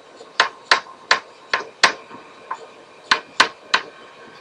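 A stylus tapping and clicking on a tablet screen while handwriting: about nine sharp, irregularly spaced clicks.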